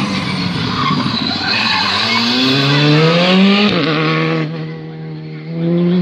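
Rally car at full throttle on a special stage, its engine revving up steeply, dropping sharply at a gear change a little over halfway, then pulling again, with tyre noise from the car sliding.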